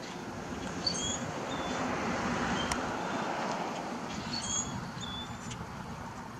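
Small birds chirping several times, short high calls, over a rushing noise that swells to a peak in the middle and then fades.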